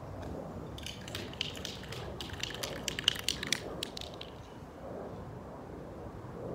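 Aerosol can of gold spray paint being shaken, its mixing ball rattling in a rapid run of sharp clicks that starts about a second in and stops after about three seconds.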